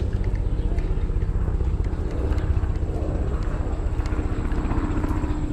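Steady low engine drone with a rumble underneath, and a humming tone that grows louder near the end.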